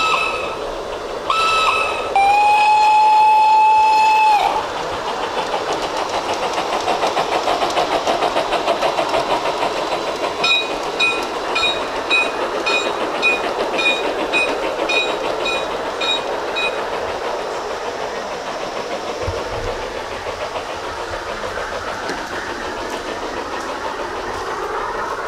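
G-scale garden model train: two short toots and then a longer blast of its whistle, followed by the clatter of its wheels on the track, building and then fading as it passes. A bell rings evenly about three times a second for several seconds midway through.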